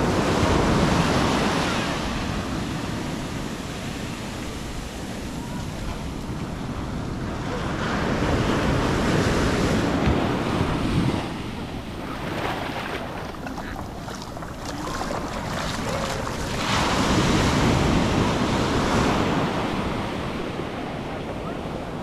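Atlantic surf breaking and washing up the sand, swelling in three surges about eight seconds apart, with wind buffeting the microphone.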